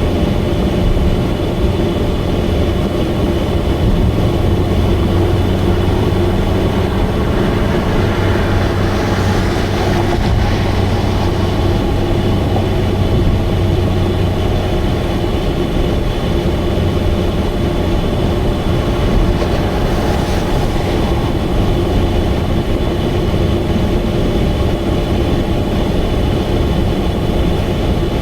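Subaru Vivio's small four-cylinder engine running steadily at highway speed, loud with an abnormal exhaust note from a leaking exhaust.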